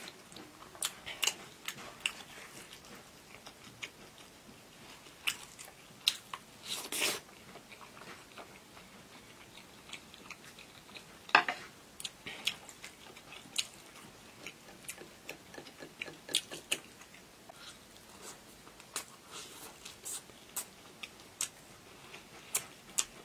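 A person chewing food up close, with many short, irregular wet clicks and smacks and a sharper click about eleven seconds in.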